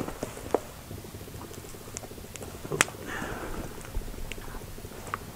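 Wood campfire crackling with scattered sharp pops and ticks, one louder pop about halfway through.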